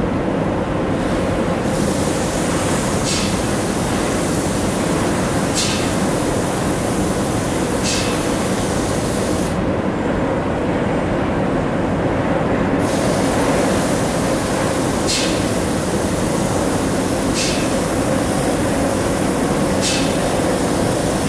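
Steady drone of paint-booth machinery with a faint hum, under the hiss of a robot's paint spray gun. The hiss stops briefly near the start and again for about three seconds halfway through, and six short, louder spurts of spray come about every two to three seconds.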